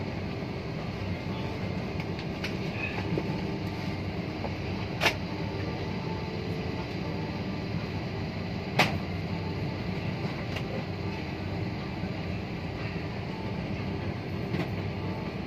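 Steady drone inside a parked airliner's cabin, with two sharp knocks about five and nine seconds in.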